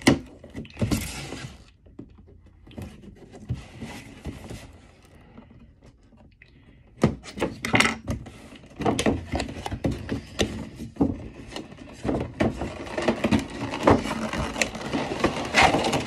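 A cardboard figure box and its clear plastic packaging being handled and opened: a sharp knock at the start, soft rustling, then about seven seconds in, steady crinkling and crackling of plastic with many clicks and taps.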